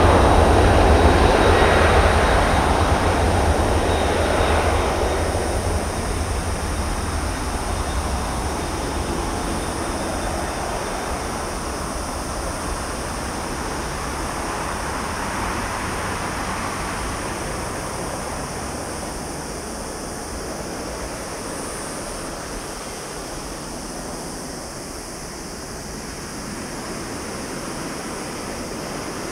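Boeing 747-400 freighter's four jet engines at takeoff thrust, loudest as it rolls past at the start, then fading steadily as it accelerates away down the runway and lifts off.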